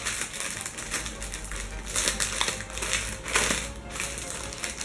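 Clear plastic packaging crinkling and rustling in the hands as a bagged pair of tights is handled and opened, in irregular crackles with a few sharper ones in the middle.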